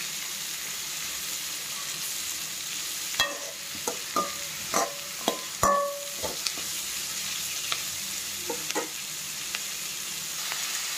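Diced ridge gourd, sliced onions and dried red chillies sizzling in oil in a metal kadai, while a slotted metal spatula stirs them. The spatula scrapes and clanks against the pan in a run of sharp knocks, some ringing briefly, mostly between about three and seven seconds in.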